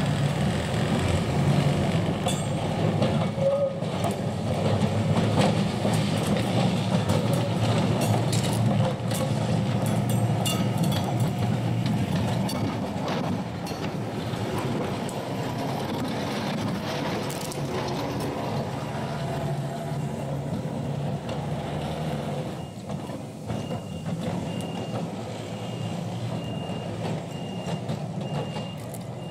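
Vintage electric tram running slowly along the track, with a steady low motor hum and wheels clicking over the rail joints and points. From about 23 seconds in, a level-crossing warning signal beeps about once a second.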